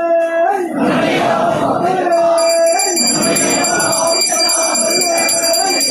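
Voices chanting together in long held notes, and from about two seconds in a small hand bell rung rapidly and continuously over the chant, as during the lamp offering of a Hindu puja.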